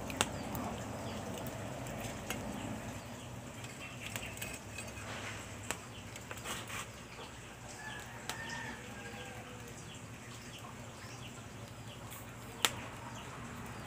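Open wood fire crackling under a cooking pot, with scattered sharp pops, the loudest two just after the start and near the end. Faint bird calls in the background.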